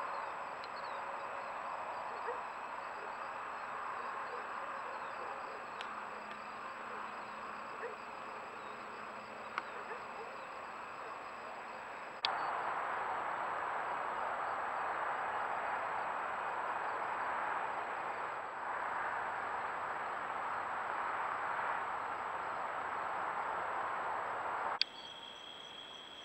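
Night insect chorus of crickets and other insects: a dense, steady hum with a few faint ticks. It jumps abruptly in level twice, about halfway and near the end, and after the second jump one steady high-pitched trill stands out.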